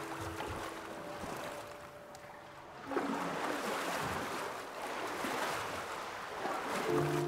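Pool water splashing and sloshing under a swimmer's strokes, louder from about three seconds in.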